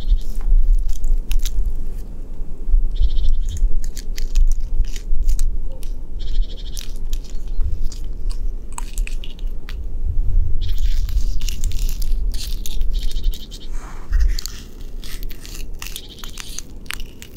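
A knit-gloved hand scratching rough, flaky tree bark: irregular dry scraping strokes with many small crackling clicks as the loose bark flakes give way.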